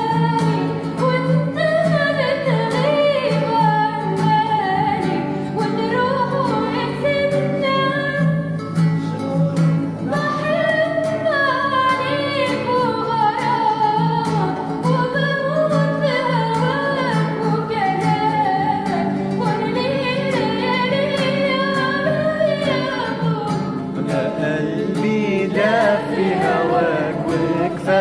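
A solo voice singing a long, ornamented Arabic melody, its pitch sliding and wavering, over steady instrumental accompaniment.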